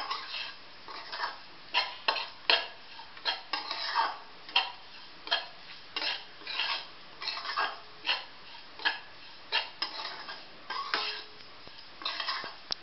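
A spatula scraping and stirring dry semolina with vegetables around a metal kadhai, in short irregular scrapes about one or two a second. The semolina is being dry-roasted until it turns lightly brown.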